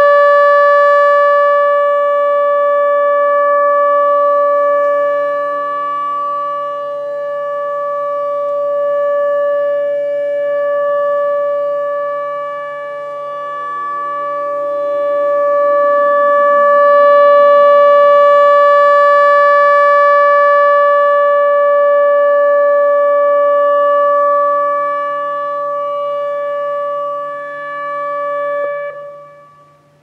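ATI HPSS-16R electronic tornado siren sounding a steady alert tone. The tone swells and fades in loudness as the rotating speaker array sweeps past, then cuts off sharply near the end. The output is super quiet in person, and the uploader can't tell whether only one driver works.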